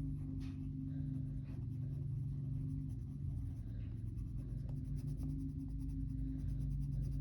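Colored pencil scratching on paper as a coloring book page is shaded in, with small irregular strokes, over a steady low hum.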